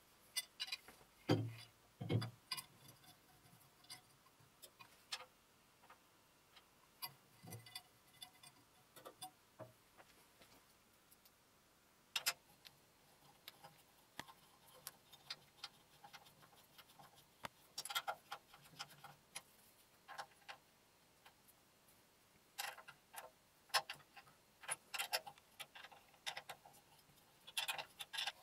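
Scattered small clicks, taps and knocks of metal bolts, screws and tools being handled during lathe assembly work, with two duller knocks about a second in and busier clusters of clicks near the end.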